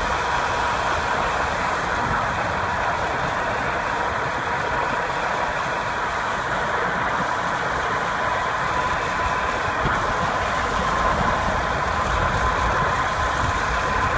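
Car cabin noise while driving on the freeway: steady engine and road rumble from inside the car, with a thin steady whine.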